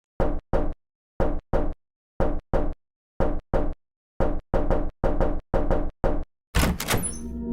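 Knocking: four double knocks about a second apart, then a quicker run of knocks at about four a second. A louder hit comes near the end, as sustained musical tones begin.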